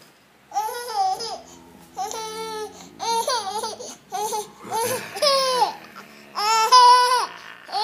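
Baby laughing in a string of high-pitched squeals, about six in a row, each rising and falling in pitch.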